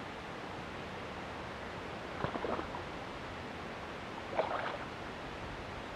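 Steady low hiss with two brief crackly bursts, about two seconds in and again past four seconds, as a hooked channel catfish is played on rod and line.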